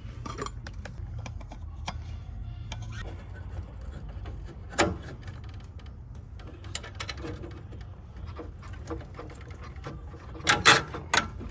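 Scattered light metal clicks and clanks of hand work on the excavator's lever linkage, with one sharper click about five seconds in and a louder clatter near the end, over a steady low hum.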